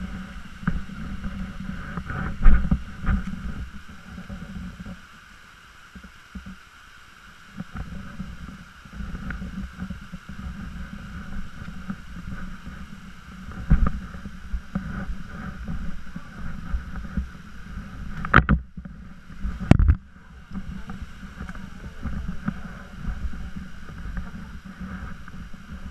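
Uneven low rumble of wind and handling noise on a head-mounted camera's microphone, with a few sharp knocks, two of them close together past the middle.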